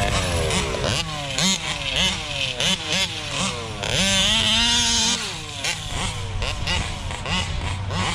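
Two-stroke big-bore engines of 1/5-scale RC trucks revving hard, the throttle blipped up and dropped back again and again, with a longer full-throttle pull about four seconds in.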